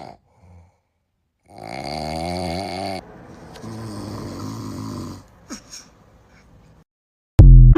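A person snoring, two long snores one after the other, then a short falling whistle. Near the end a sudden, very loud blast cuts in with a ringing tone after it.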